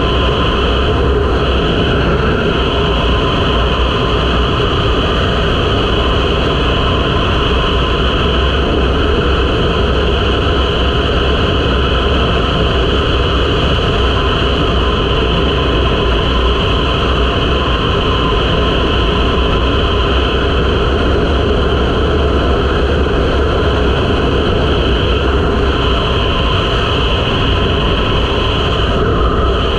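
2023 KTM 500 EXC-F's single-cylinder four-stroke engine running steadily at highway cruising speed, mixed with a heavy low rumble of wind on the microphone.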